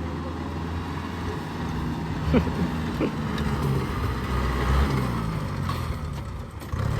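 Kubota L4018SP tractor's diesel engine running steadily, with two sharp knocks between two and three seconds in. Near the end the engine note dips, then climbs again as the revs pick up.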